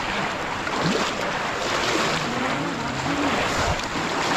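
Steady splashing and churning of shallow water as a crowd wades through it, plunging bamboo polo basket traps and dragging nets. Voices call out faintly in the middle.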